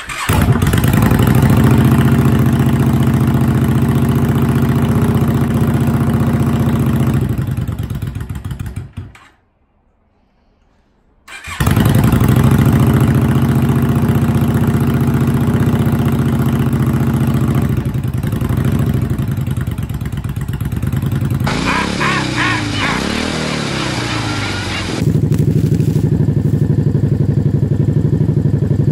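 Yamaha V-Star 650's air-cooled V-twin, fitted with Vance & Hines Short Shots exhaust, starting and running loudly. It stops about nine seconds in and runs again a couple of seconds later, with a few seconds of rising and falling pitch past the middle.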